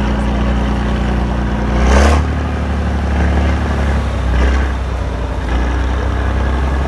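Eight-wheeled trial truck's engine working hard as the truck climbs out of a dirt pit, with a short sharp burst of noise about two seconds in, after which the engine note drops, and a smaller one later.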